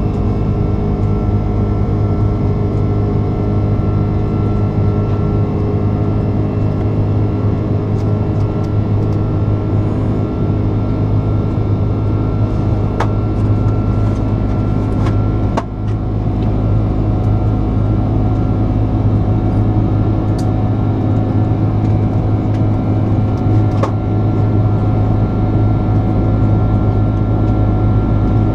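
Steady engine and air drone inside the cabin of an Airbus A330-300 climbing after takeoff, its Rolls-Royce Trent 700 engines holding a low hum with several steady tones over it. A few faint clicks sound through it, and it dips briefly a little past the middle.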